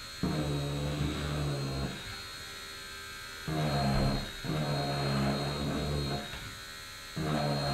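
Corded Dremel Stylo pen-style rotary tool, set on low speed, carving grain lines into a Bondo patch on a masonite door. It buzzes in three strokes of one to three seconds each, with two breaks of about a second where the bit lifts off, while a faint high motor whine continues.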